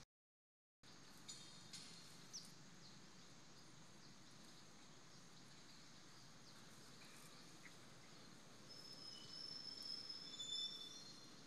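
Faint outdoor background hiss that is cut off completely for the first second, then a few soft clicks. About nine seconds in come several thin, high-pitched chirping calls.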